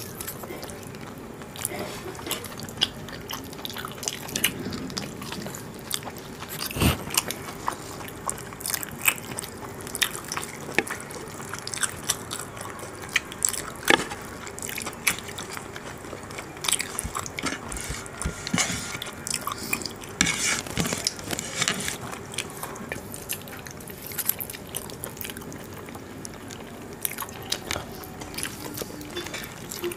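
Two people eating mutton curry and rice with their hands: close-up chewing and biting, with many irregular sharp clicks.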